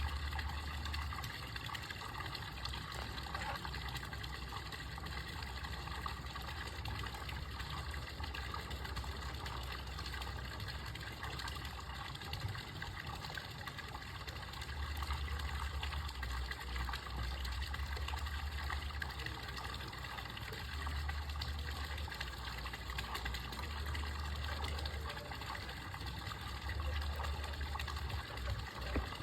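Running water, a steady trickling stream, with a low rumble that swells and fades several times.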